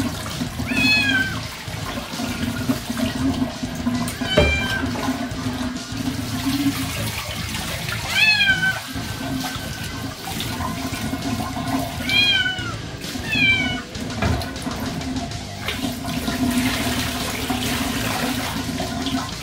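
A wet tabby-and-white cat meowing about five times, each a short cry that falls away at the end, while being bathed. Tap water from the bathtub faucet runs and splashes steadily underneath.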